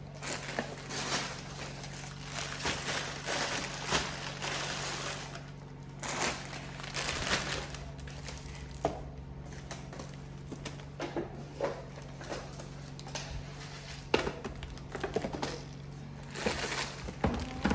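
Packaging rustling and crinkling, with many scattered clicks and light knocks as items are handled and set down, over a steady low hum.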